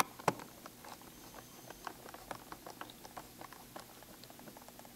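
Small screwdriver turning screws into a MacBook Pro's bottom case: a faint, irregular run of small clicks and ticks, with one sharper click about a third of a second in.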